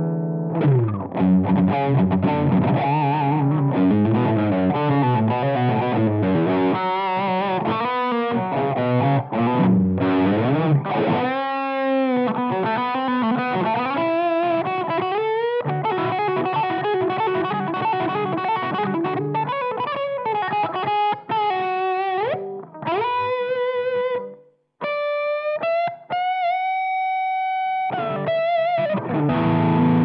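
Electric guitar played through a Behringer UM100 Ultra Metal distortion pedal, heavily distorted. Fast riffing gives way near the end to sliding notes and a few long held lead notes.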